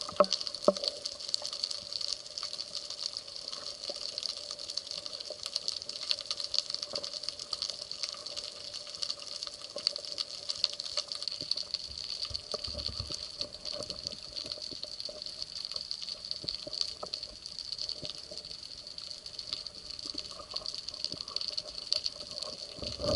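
Underwater ambience picked up by a camera in its housing: a steady hiss with a faint hum and many scattered small clicks and crackles.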